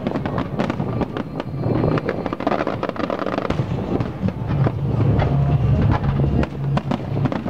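Aerial fireworks display: shells bursting in a rapid, irregular run of bangs and crackles.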